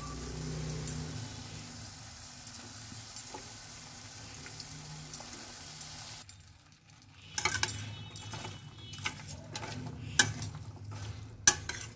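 Chopped potatoes, carrots and fenugreek leaves dropped into hot masala in a steel pan, sizzling steadily. After a sudden break about six seconds in, a spoon stirs the vegetables, scraping and clicking against the pan.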